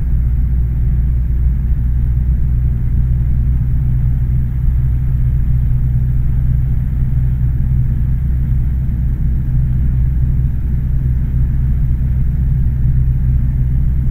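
Diamond DA40F's four-cylinder engine and fixed-pitch propeller running steadily at run-up power, about 1800 rpm, heard from inside the cockpit while the mixture is leaned for best power before takeoff.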